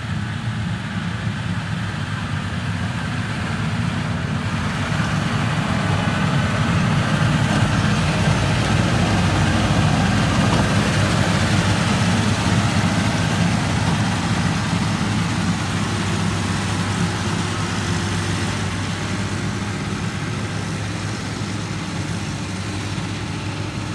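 Engine of heavy earthmoving machinery running steadily with a deep hum, growing louder over several seconds toward the middle and easing off toward the end.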